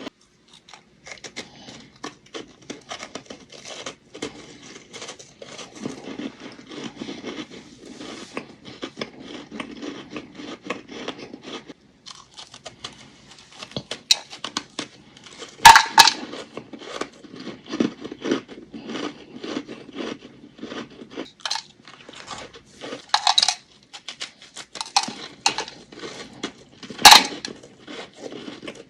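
Close-up bites into thin chunks of ice: dense crackling crunches, with a few much louder, sharp crunching bites, three of them standing out in the second half.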